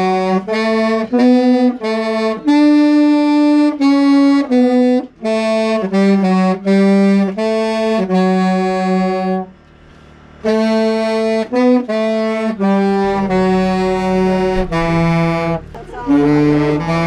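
A single wind instrument playing a slow melody, note by note, with a pause of about a second near the middle.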